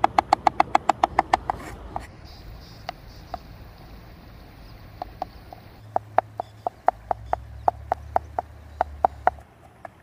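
A knife chopping vegetables on a plastic cutting board: a fast run of chops that stops about a second and a half in, a few single chops, then a steady run of about four to five chops a second from about five seconds in, stopping shortly before the end.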